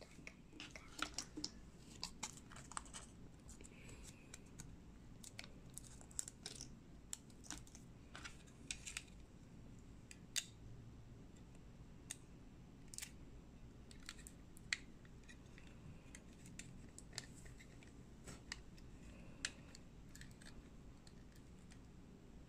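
Irregular small plastic clicks and taps as a built plastic brick model is handled and turned over in the hands, over a faint low hum.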